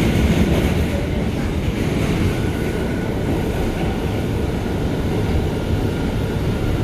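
Steady rumble of an R179 subway car's wheels and running gear on the rails, heard from inside the moving car, with a faint steady whine.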